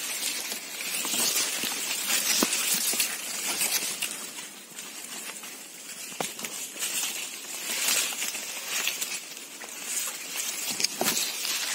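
Maize leaves rustling and swishing as someone pushes through a dense cornfield, the leaves brushing close by, with a few sharp cracks among the rustle.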